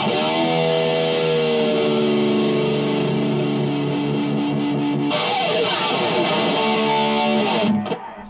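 Distorted electric guitar playing the closing chords of a metal riff. One chord rings out from the start and sags slightly in pitch during the first second or so. A second chord is struck about five seconds in, held, and cut off abruptly near the end.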